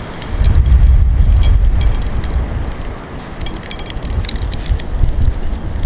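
Strong wind buffeting the microphone, with a heavy uneven rumble in the first couple of seconds and again at the end, and light crackling ticks in between.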